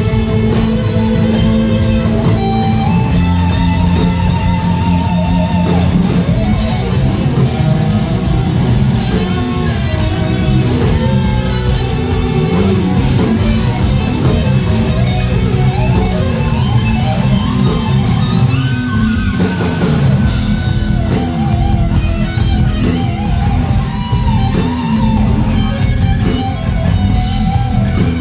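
Rock band playing: electric guitar lines with bent, wavering notes over bass and a steady drum beat.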